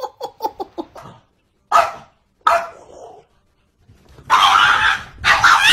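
Siberian husky vocalizing: a quick string of short yips, then two louder, drawn-out calls. Near the end come two loud, harsh, noisy bursts, the second one shorter.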